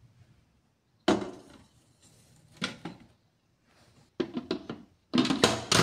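Stainless steel inner pot of an Instant Pot Duo Plus electric pressure cooker set down into the cooker base with two sharp metallic knocks. Near the end comes a quick run of clicks and clatter as the lid is fitted and turned shut.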